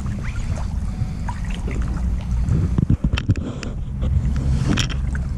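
River water sloshing around someone wading, over a low wind rumble on the microphone, with a few short splashes about three seconds in and again near the end.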